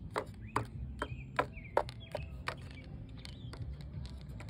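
Plastic Littlest Pet Shop figure tapped in little hops on a textured plastic floor liner: a string of sharp taps, about two or three a second, growing fainter in the second half.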